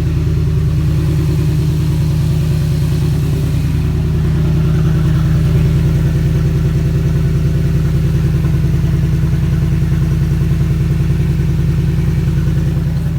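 2012 Ford Econoline E150's 5.4 L Triton V8 idling steadily with fresh oil in it.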